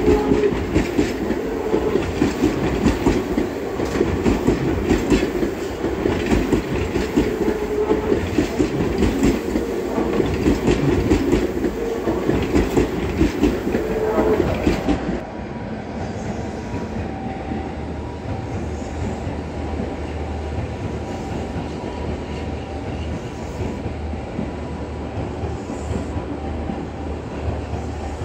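A Seibu commuter electric train running along the tracks, its wheels clicking rhythmically over the rail joints. About fifteen seconds in this cuts to a quieter, steady sound of a train at a platform: a low drone with a faint thin whine.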